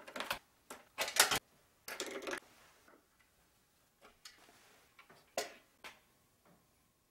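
Plastic parts of a pedestal fan being handled: a string of irregular clicks, knocks and short scrapes as the grille and motor cover are gripped and taken off. The loudest knocks come about a second in.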